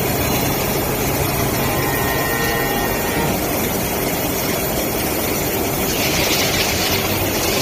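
CNC grinding and deburring machine running, a steady loud mechanical noise with a low hum that drops away about three seconds in. A brighter hiss rises for a second or so near the end.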